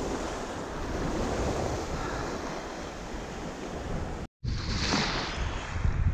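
Small waves washing over a shallow sandy flat, with wind buffeting the microphone. The sound cuts out completely for a moment about four seconds in, then carries on.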